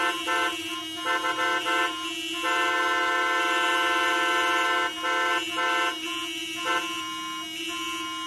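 Several car horns honking over one another: long held blasts broken by short toots, like a traffic jam.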